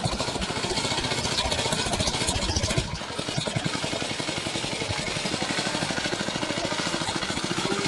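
Small junk engine running steadily, turning the HVAC blower that fans air into a homemade hovercraft base. It drops a little in level for a moment about three seconds in, then carries on.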